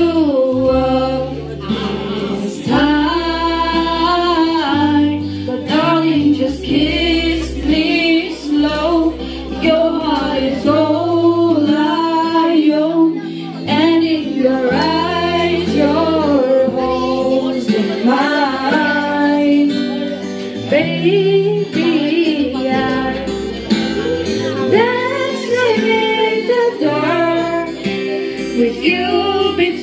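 Live band performing a love song: two female voices singing together into microphones over a strummed acoustic guitar, with sustained low bass notes underneath.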